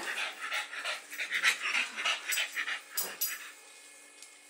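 French bulldog panting quickly, about three or four breaths a second, dying away in the last second.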